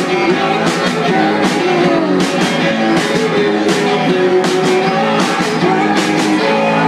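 Live rock band playing loud: electric guitar and drums, with cymbal hits on a steady beat and some singing.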